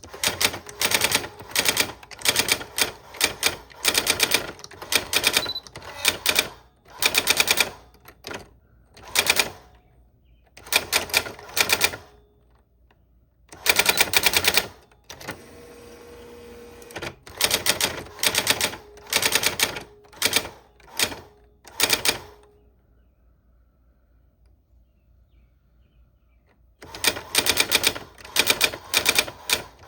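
Old typewriter being typed on: runs of rapid key strikes in bursts, with short pauses between them. About halfway through there is a steadier rasping sound lasting a second or two.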